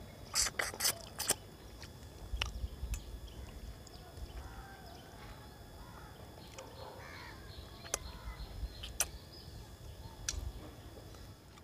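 Eating sounds of a man eating rice and fish with his hand: a quick run of sharp lip-smacking clicks near the start and scattered smacks later. Birds call faintly in the background.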